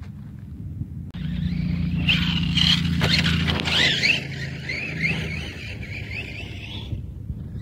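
RC truck's electric motor running hard, its whine rising and falling with the throttle, over a low steady rumble. The sound starts abruptly about a second in and cuts off near the end.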